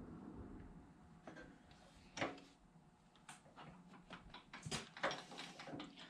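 Scattered sharp metal clicks and knocks of small parts and hand tools handled on a workbench while trunnion needle bearings are pressed into a rocker arm.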